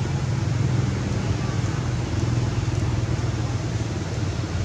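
Steady low rumbling background noise with an even hiss above it and no distinct events.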